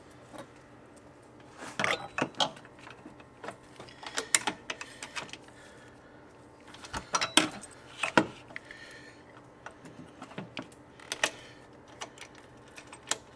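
Small metal parts, bolts and bracket pieces from an oil catch can kit, clinking and clattering as they are handled, in scattered bursts of sharp clicks.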